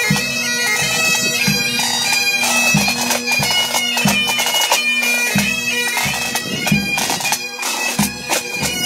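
Pipe band playing as it marches past: Highland bagpipes sounding a melody over their steady drone, with snare drums and a bass drum beating time about twice a second.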